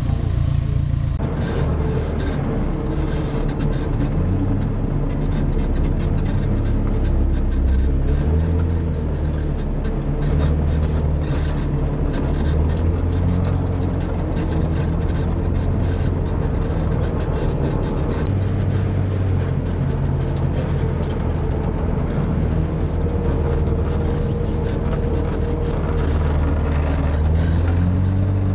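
ATV engine running while being driven, its pitch rising and falling as the throttle changes.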